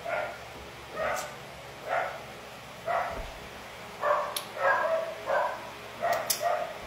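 A dog barking repeatedly, about once a second, with the barks coming quicker for a couple of seconds in the middle.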